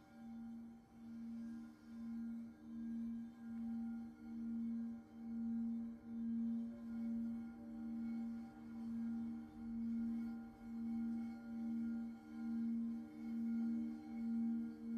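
Frosted quartz crystal singing bowls sung by rubbing wands around their rims: a deep steady hum with a few fainter higher tones above it, pulsing about once a second and gradually growing louder.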